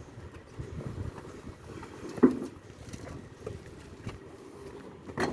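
A few knocks and bumps over a low rumbling background, the loudest about two seconds in and another near the end.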